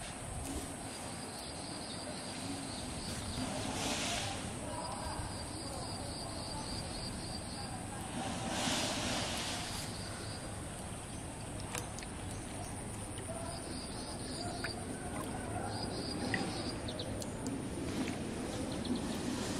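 Paddy-field ambience: insects trilling in short, rapid bursts again and again over a steady high whine, with two brief rustling swishes about four and nine seconds in.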